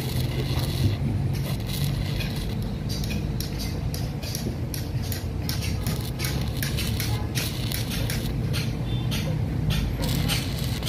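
Stick (arc) welding on a steel pipe. The electrode arc crackles and sputters irregularly as a bead is run, over a steady low hum.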